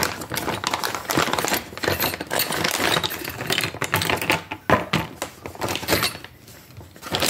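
Clear plastic parts bags crinkling and rustling as a replacement kick-starter shaft and small gears are pulled out, with hard clicks and clinks of the metal parts against each other and the box. It dies down near the end.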